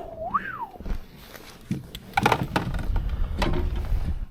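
A short voice sound sliding up and back down, then a run of knocks, clicks and low rumbling from a freshly caught crappie being handled in the boat, loudest in the second half.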